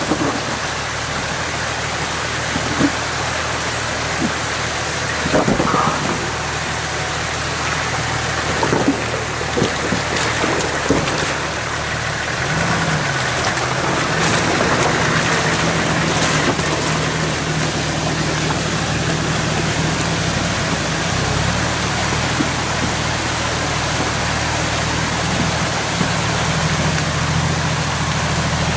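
Mountain stream water rushing over rocks and broken concrete slabs, with a few sharp knocks in the first half. Before the middle the low note of an off-road SUV's engine comes in, rises as the Nissan Patrol crawls through the water, and then runs steadily at low revs.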